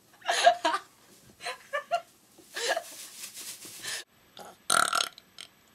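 A young woman burping: a drawn-out, rattling belch of over a second, among shorter bursts of voice.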